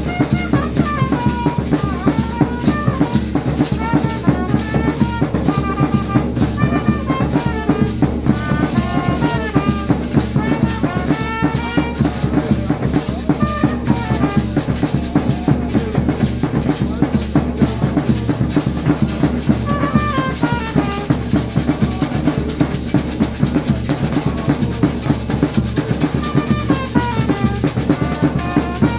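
Band of large double-headed drums beaten with sticks in a steady, dense rhythm, with a trumpet playing melodic phrases on and off over the drumming.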